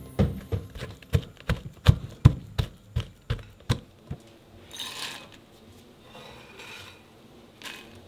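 Kitchen utensils and crockery knocking sharply, about four knocks a second for the first four seconds, followed by a few softer scraping sounds.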